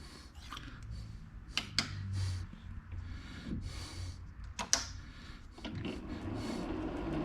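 A few sharp metallic clicks and short hissing handling noises, then about five and a half seconds in a machine-tool motor starts and runs steadily.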